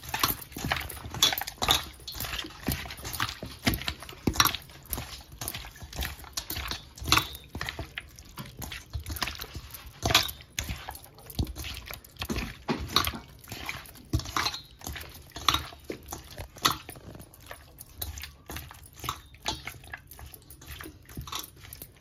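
Raw chicken pieces being mixed and kneaded by hand with a wet marinade in a steel bowl: a continuous run of irregular wet squelches and clicks, with bangles on the wrist knocking against the bowl.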